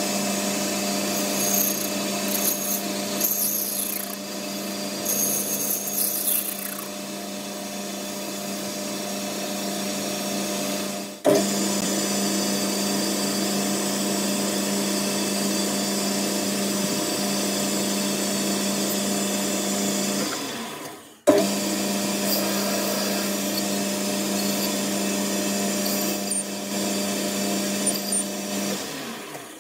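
Boxford BUD lathe running steadily with a motor hum while the end of a brass bar is faced and then drilled from the tailstock. Twice, about 11 and 21 seconds in, the sound sinks away and then comes back abruptly at full running.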